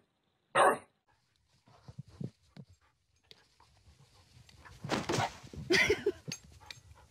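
A bulldog barks once, loud and short, about half a second in, followed by faint snuffling sounds. A louder patch of rustling noise comes around five to six seconds in.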